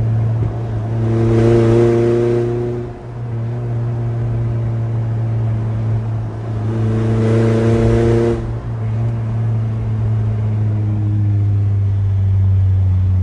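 1982 Toyota pickup's 22R four-cylinder engine running through Doug Thorley Tri-Y headers and Smithy's glass-pack mufflers, heard from inside the cab while driving. A steady low exhaust drone swells twice as the truck accelerates, about a second in and again around seven seconds in, and drops off briefly after each.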